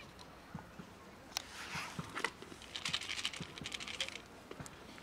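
Plastic food container being handled and set down on concrete: scattered clicks, then a quick run of rattling plastic clicks and rustling.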